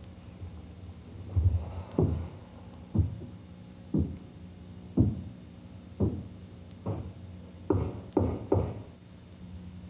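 Knocking on a door: slow, evenly spaced knocks about once a second, then three quicker ones near the end, over a steady electrical hum.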